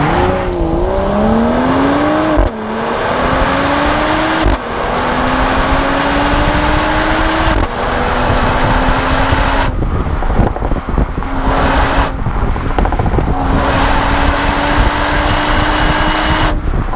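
Mercedes-AMG GLE 53's turbocharged inline-six exhaust pulling hard: its pitch climbs and then drops suddenly at each upshift, three times in the first eight seconds. Partway through, the driver lifts off the throttle briefly a couple of times and the exhaust crackles and pops before the engine pulls again at a steadier pitch.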